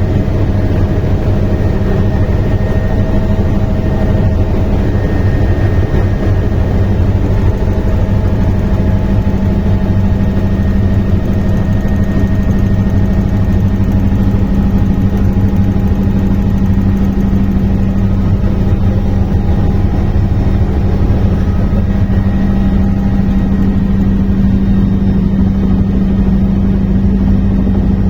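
Helicopter in flight, its engine and rotor making a loud, steady drone with a constant low hum.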